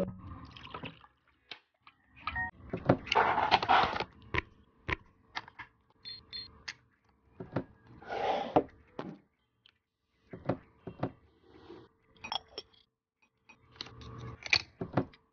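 Scattered small clicks, taps and rustles of miniature toy pieces being handled and set down, with a few brief electronic beeps.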